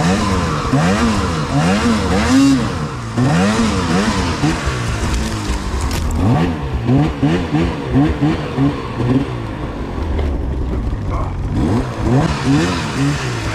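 Snowmobile two-stroke engine revving up and down over and over in quick throttle blips as the sled is worked through trees. The revs ease off for a moment about ten seconds in, then pick up again near the end.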